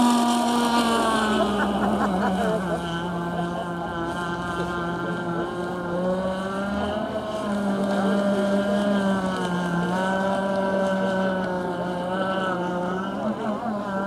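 Radio-controlled model racing boat's engine running at high revs, a high, buzzing note whose pitch falls over the first two seconds and then rises and dips repeatedly as the boat runs the course.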